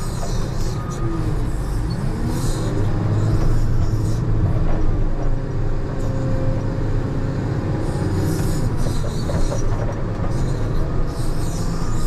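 Diesel engine of a JCB 427 wheel loader running hard under load while pushing snow, heard from the cab, with short squeals sliding in pitch and patches of hiss that come and go.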